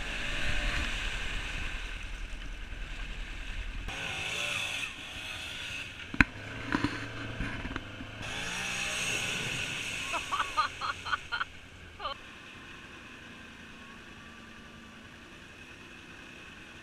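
Off-road vehicle engines running on a muddy trail: first the side-by-side's engine heard up close, then, after about twelve seconds, a quad ATV's engine heard more quietly from a distance. There is a sharp knock about six seconds in and a quick run of short high-pitched sounds around ten to eleven seconds.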